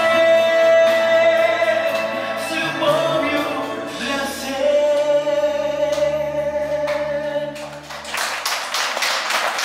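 A song sung over a backing track, with long held notes; the song ends about eight seconds in and applause follows.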